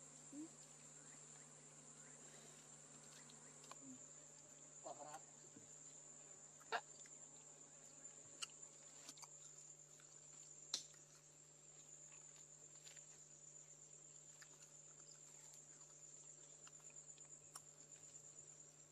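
Faint, steady high-pitched insect chirring, with a few sharp clicks.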